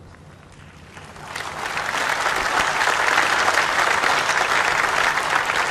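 Crowd applauding: the clapping starts about a second in, builds, then holds steady.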